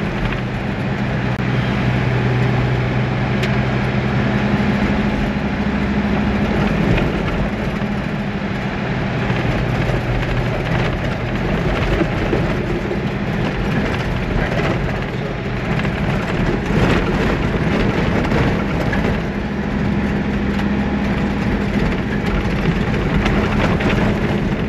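Toyota LandCruiser 80 Series driving on soft beach sand, heard from inside the cabin: a steady engine drone over tyre and body noise, with scattered small knocks and rattles. The engine note eases off for a few seconds twice and then picks up again.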